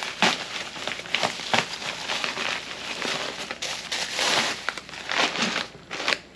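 Bubble wrap and plastic packaging crinkling and crackling as it is handled, with a scatter of sharp crackles.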